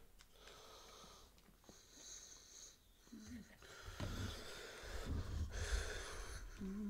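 Faint breathing close to the microphone, in a few short hissy spells, with a brief low hum about three seconds in and again near the end.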